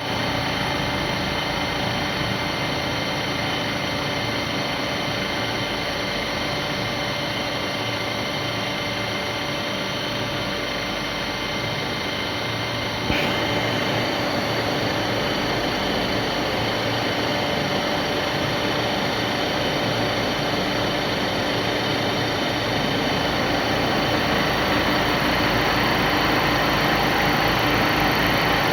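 Milling machine running steadily while it mills the hexagon flats of an M56 nut held on a rotary indexing table. A short click comes about thirteen seconds in, after which the sound is slightly louder.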